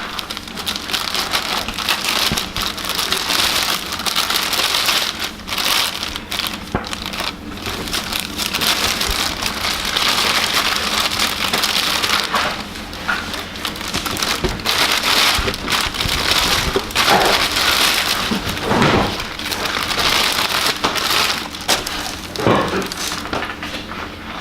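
Plastic packaging being unwrapped by hand, crinkling and rustling continuously in a dense crackle.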